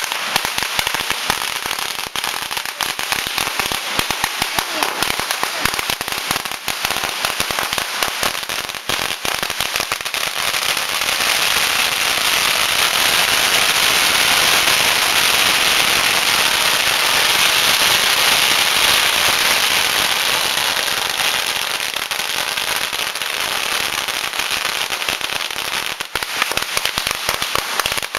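Firecrackers going off in rapid succession, a dense run of sharp bangs that builds to an unbroken, louder crackle in the middle and thins back to separate bangs near the end.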